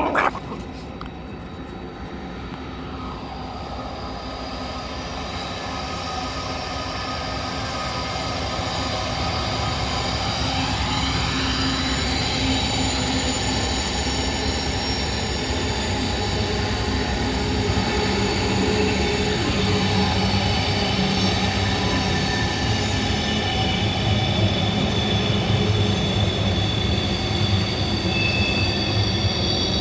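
Train going by, its rumble growing steadily louder over the first fifteen seconds or so and then staying loud, with steady high-pitched squealing from the wheels. A short loud sound comes right at the start.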